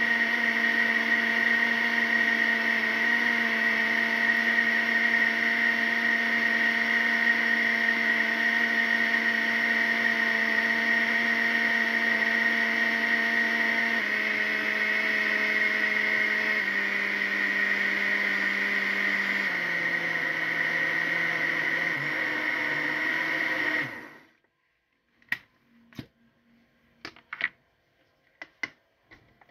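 Electric blender running, mixing orange juice, zest, eggs and oil into a liquid batter. The motor's pitch drops in a few steps after about 14 seconds, and it cuts off abruptly about 24 seconds in, followed by a few light knocks.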